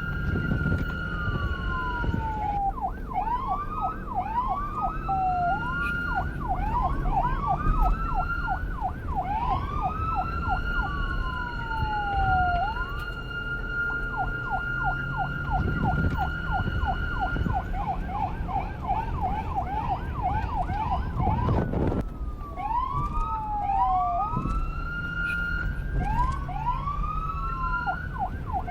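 Police car siren cycling through its tones: a rising wail held on a steady pitch, a fast yelp of quickly repeated rising sweeps (about three or four a second), and slow falling glides. A low rumble runs underneath.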